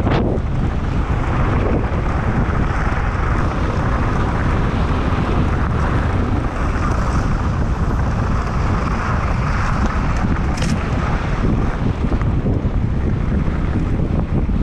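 Wind buffeting the action camera's microphone as a mountain bike descends a gravel fire road at about 50–58 km/h, with the knobby tyres rolling over loose gravel: a loud, steady rushing noise. There is a brief high rattle about ten and a half seconds in.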